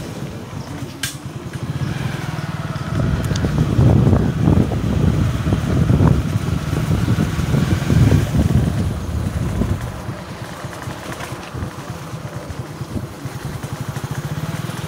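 Motorcycle engine running while the bike is ridden along, with a low rumble that swells louder and more unevenly for several seconds in the middle. Over the last few seconds it settles into an even engine pulse.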